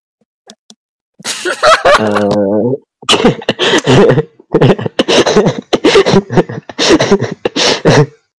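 Teenage boy laughing hard: a loud burst of laughter about a second in, then a run of short, breathy laughs about two a second that stops just before the end.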